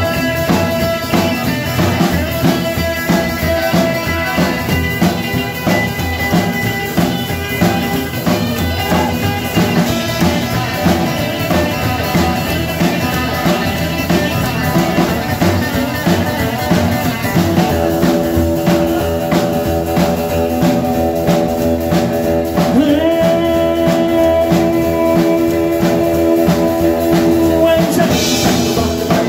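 A live rock-and-roll band playing: a Telecaster-style electric guitar over a strummed acoustic guitar and a drum kit, with singing. From a little past the middle, long held notes run for about ten seconds.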